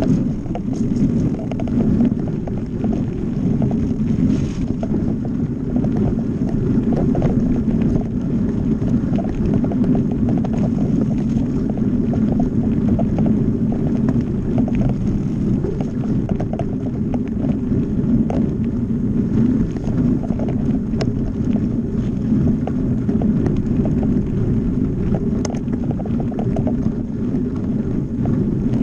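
Mountain bike rolling fast over a hard-packed dirt trail: a steady tyre and frame rumble, dense with small clicks and rattles, and wind on the microphone.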